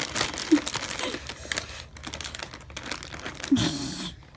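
Crinkling and irregular clicking handling noises, with two brief voice sounds.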